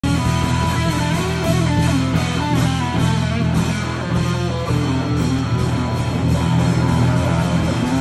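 Live surf rock played on electric guitar over a drum kit keeping a steady beat.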